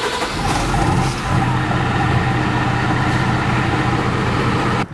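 Diesel engine of an M.A.N TGM 4x4 truck idling steadily, cutting off abruptly near the end.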